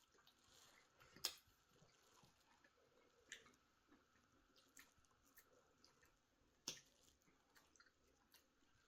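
Near silence with a few faint, scattered clicks, the loudest about a second in and another near seven seconds in.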